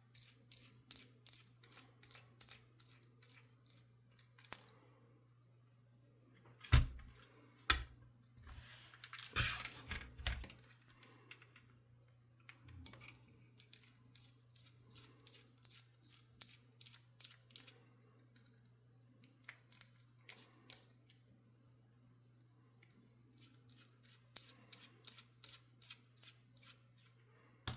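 Quick runs of small clicks and ticks from handling and working a micro RC servo's plastic case and screws with a tiny screwdriver, with two louder knocks about seven and eight seconds in and a short scraping sound soon after. A faint steady hum lies underneath.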